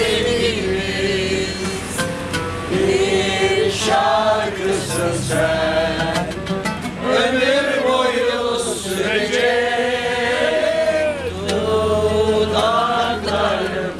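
A mixed group of men and women singing a Turkish folk song together in unison.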